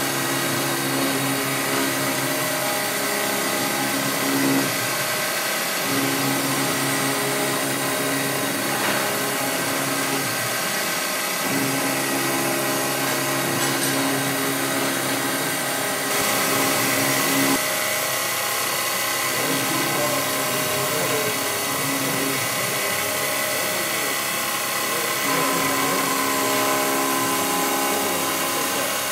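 Syil X5 CNC milling machine's spindle running while an end mill cuts AISI 1045 steel in a 3D contouring pass: a steady machining noise with a low humming tone that comes and goes every few seconds.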